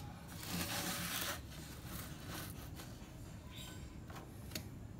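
Twigs of a small stick model being handled on a wooden worktable: a scraping rustle lasting about a second near the start, then a few light clicks and taps of wood on wood.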